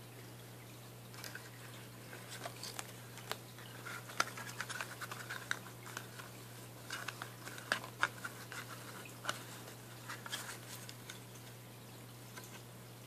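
Hard plastic phone case parts, a Ballistic SG MAXX shell and holster clip, handled by hand: scattered light clicks, taps and short scrapes of plastic, starting about a second in and dying away near the end, over a steady low hum.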